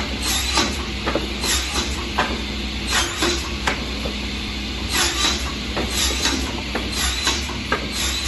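Lignum Ideal manual wood block cutting machine running with a steady hum, with sharp knocks and clacks coming irregularly, one to three a second, as a plank is fed through it.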